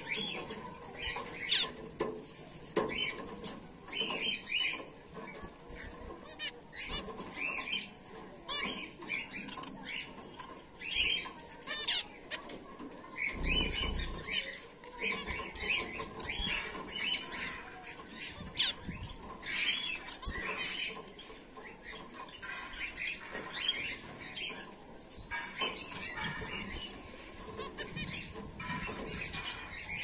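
A colony of Bengalese finches chirping, a steady stream of short, high calls overlapping from several birds, with bursts of wing flapping. About halfway through there is one dull low thump.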